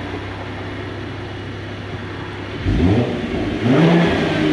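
Cadillac ATS-V's twin-turbo V6 idling steadily, then revved twice in quick blips, about a second apart, near the end.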